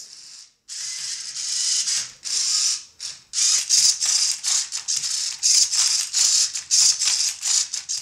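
LEGO Mindstorms cube-solving robot turning and flipping a Rubik's Cube: a dry plastic rattling and clicking of cube layers and LEGO parts. It comes in longer runs at first, then in quick separate strokes about three a second.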